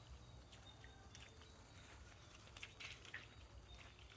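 Faint splashing, squelching footsteps of bare feet through shallow puddles on a wet stony track, with scattered small ticks and a few sharper ones about three seconds in, over a low steady rumble.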